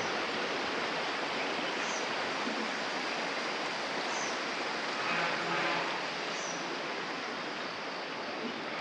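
Steady rushing of a river flowing in the valley below, with a few faint high chirps over it.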